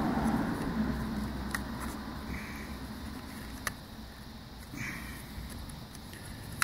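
A few sharp clicks and short scrapes of small plastic instrument-cluster parts being handled and worked on the bench, over a faint steady hum.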